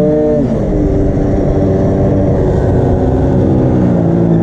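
Minarelli two-stroke engine of an MBK Booster scooter running loud. The revs are held high at first, drop off about half a second in, then run steadier at lower revs.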